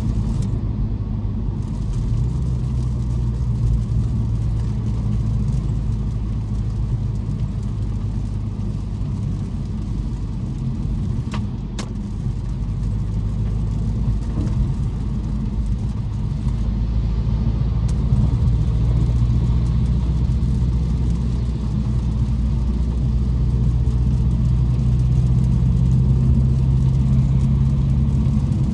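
BMW M550i's twin-turbo V8 running as the car is driven in traffic: a low, steady drone whose tone comes and goes with speed and grows louder in the second half, over the hiss of tyres on a wet road. One sharp click sounds about halfway through.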